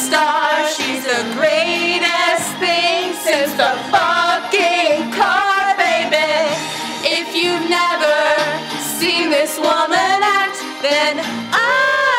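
A woman singing into a microphone over a backing track with a bass line, her voice wavering in vibrato on held notes.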